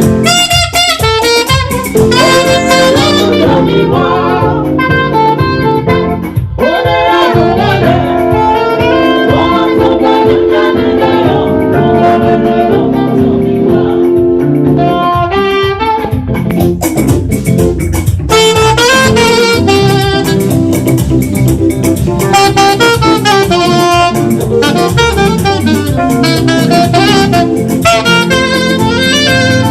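Saxophone playing a gospel praise melody over band accompaniment, with a quick run of changing notes.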